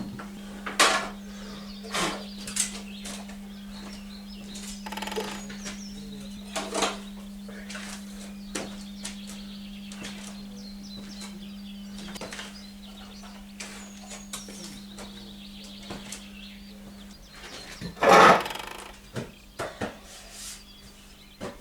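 Scattered knocks, clicks and clatter of objects being handled and moved, with one loud clatter about 18 seconds in, over a steady low electrical hum that drops away about 17 seconds in.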